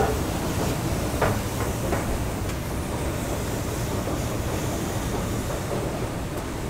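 1995 Otis escalator running, a steady mechanical rumble with a few light clicks in the first two seconds.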